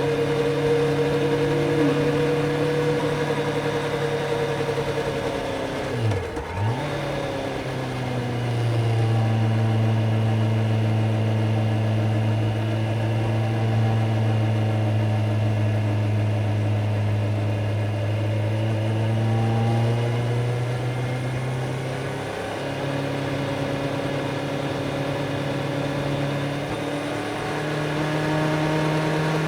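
Kawasaki Z900's inline-four engine running at a steady cruise under way. About six seconds in, the note drops sharply and picks up again at a lower pitch, as in a gear change, and it holds there before rising slightly later on.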